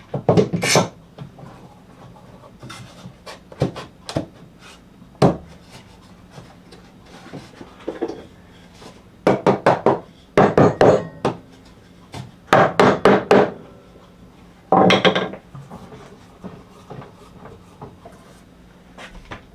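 Screws or nails being driven into clamped 2x4 pine boards: a few single knocks of wood, then four loud bursts of about a second each, with pauses between them.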